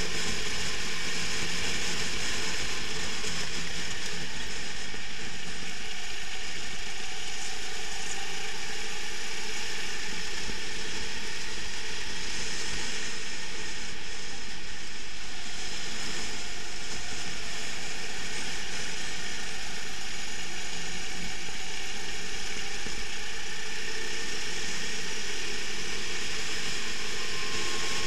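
Racing kart engine running hard at speed, heard from a camera mounted on the kart, as a steady loud mechanical buzz without a break.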